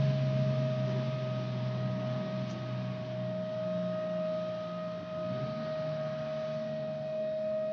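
Mine shift-change siren sounding one long steady tone at an unchanging pitch. Beneath it a large haul dump truck's diesel engine hums low and fades away over the first five seconds or so.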